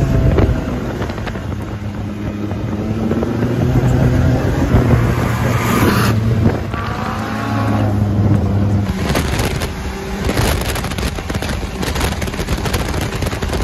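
Engine of a turbocharged Can-Am Maverick X3 side-by-side running under throttle while driving on sand, its pitch rising and falling. From about nine seconds in, a rough crackling noise lies over it.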